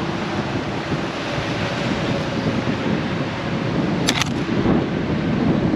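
Wind buffeting the microphone of a camera riding on the outside of a moving Ford Bronco, over the low rumble of the vehicle rolling along a dirt trail. A sharp double click about four seconds in.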